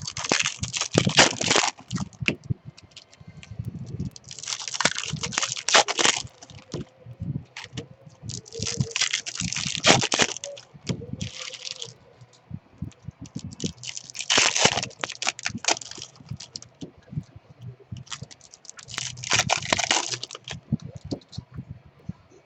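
Repeated bursts of close clicking and rustling, each lasting a second or two with short pauses between.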